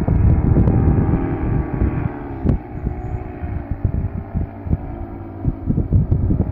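Paramotor engine and propeller droning overhead, a steady pitched hum with slight shifts in pitch, under gusty wind buffeting the microphone.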